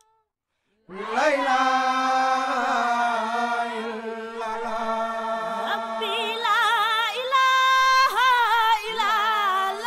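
Voices singing a devotional chant, starting about a second in after a brief silence. A lead voice sings a wavering, strongly vibrato melody over a steadily held low note.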